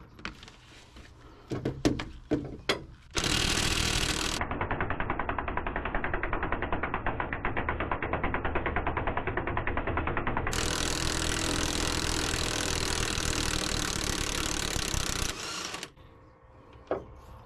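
A few light metal clicks of tools, then a cordless impact wrench hammering rapidly and steadily on a bolt for about twelve seconds before it stops suddenly.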